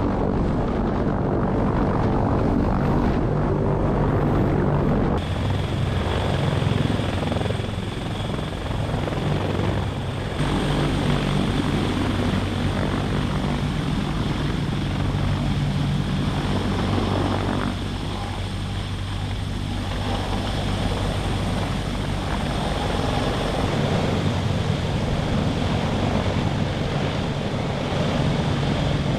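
CH-53K King Stallion heavy-lift helicopter running: steady rotor noise with a high, thin whine from its three turboshaft engines, as it hovers and flies off carrying an armored vehicle on a sling load. The sound changes abruptly twice in the first ten seconds, where shots are cut together.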